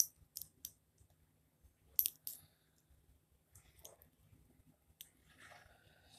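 Handling a steel-bracelet wristwatch: a few sharp metallic clicks and clinks, three in quick succession at the start and another pair about two seconds in, with fainter clicks and a light rustle later.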